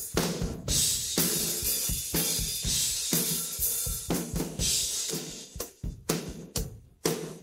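Isolated rock drum track, only the cymbal, tom and room-ambience microphones, playing a steady beat with strikes about twice a second. Cymbals wash through the first half, then the hits stand apart more sharply.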